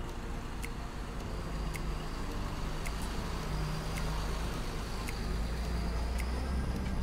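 Engine and hydraulics of a truck-mounted under-bridge inspection unit running steadily as its arm is worked by remote control, with a low hum that rises in the middle and fades near the end. Faint light ticks come about once a second.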